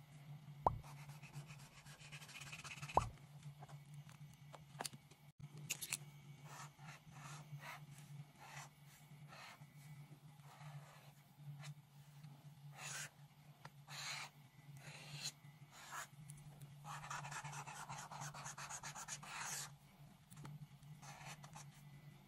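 Paint marker tip scratching across paper in short strokes, then one longer stroke of about three seconds near the end, over a steady low hum. Two sharp clicks in the first few seconds.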